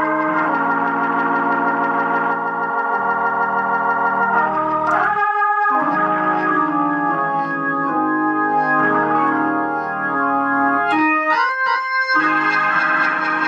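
Hammond organ playing held chords that change every second or two through an amplifier newly fitted with orange drop capacitors, as a sound check after the repair. The chords break off briefly about five seconds in and turn short and choppy near the end.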